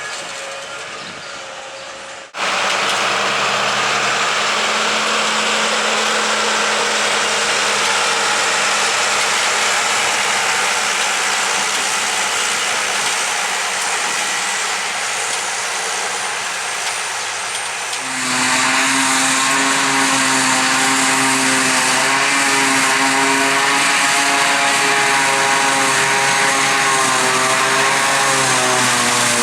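Heavy diesel farm machinery running, from separate clips cut together about two seconds in and again about eighteen seconds in. The last clip has a steady engine drone whose pitch wavers slightly.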